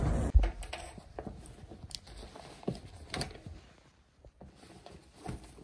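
Steady outdoor noise cuts off just after the start with a single loud knock; then scattered soft clicks, knocks and rustles of a tablet in a folio case and other things being handled and packed into a canvas tote bag.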